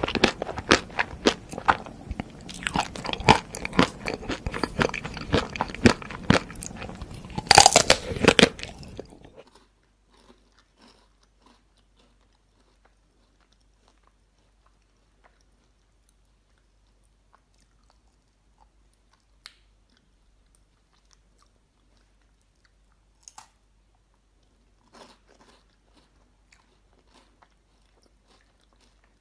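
Close-miked crunching and chewing of a chocolate ice cream bar with a crisp, nut-studded coating: dense, loud crackles and bites. About nine seconds in it drops suddenly to near quiet, with only a few faint bites and mouth sounds as a chocolate-covered wafer bar is eaten.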